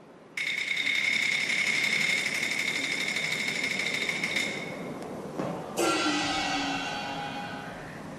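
Traditional opera percussion: a fast metallic roll with a bright steady ring starts about half a second in. About six seconds in a gong is struck, and its ringing tone sinks slightly as it fades.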